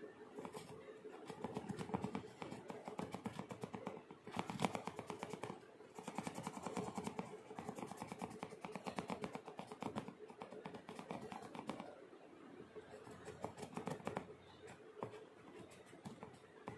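Pen tip scratching and rubbing on a small paper squishy, in quick scratchy runs that come and go, over a faint steady hum.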